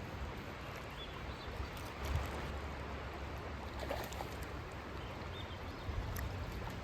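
Wind buffeting the microphone in gusts over the rush of river water.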